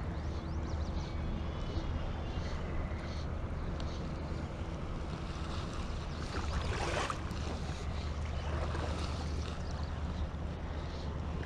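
Wind rumbling on the microphone over the running water of a shallow creek, with a louder rush of noise briefly about two-thirds of the way in.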